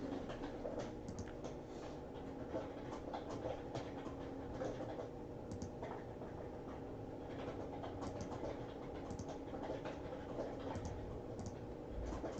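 Faint, scattered light clicks and taps, irregular and soft, over a faint steady hum.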